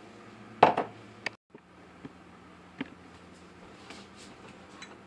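Kitchen utensils clattering against dishes, a short loud rattle of several strokes early on, then a few light knocks and ticks as a spatula is fetched and handled.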